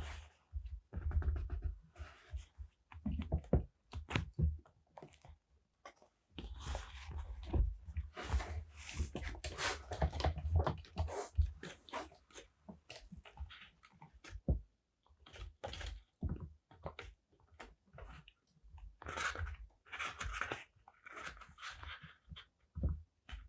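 Close-up paper and sticker handling for journal decorating: crinkling and rustling of paper with scattered taps and clicks on the desk, densest for several seconds in the middle and again near the end.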